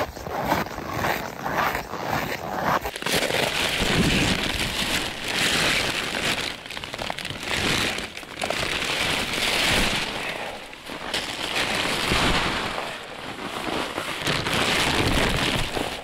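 Ice-fishing tent fabric and gear rustling and crinkling as the tent is set up on the ice. Quick crackles in the first few seconds, then uneven swells of rustling.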